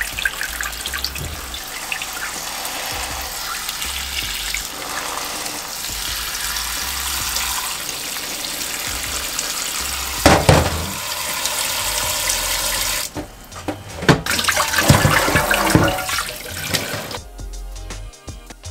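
Tap water running into a steel bowl as raw chicken feet are rubbed and rinsed by hand, with a louder splash about ten seconds in.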